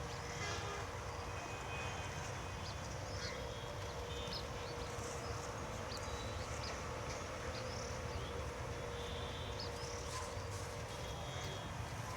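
Outdoor farm ambience: birds chirping in short, scattered calls over a steady low rumble and a faint steady hum.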